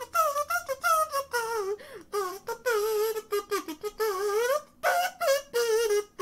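High-pitched cartoon voice wailing without words, in short wavering cries about two a second.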